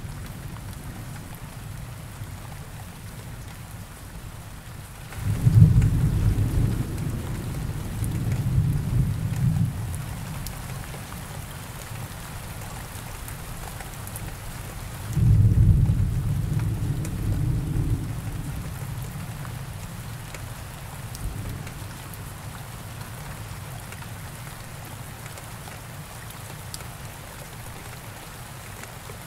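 Steady rainfall with two deep rolls of thunder. The first starts about five seconds in and rumbles for several seconds; the second starts about fifteen seconds in and fades away.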